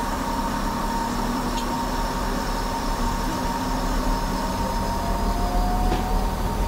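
Leyland TL11 diesel engines of a BR Class 142 Pacer idling steadily, heard from inside the carriage while the unit stands at a signal, with a steady whine over the engine hum. A faint tone rises slightly over the last few seconds.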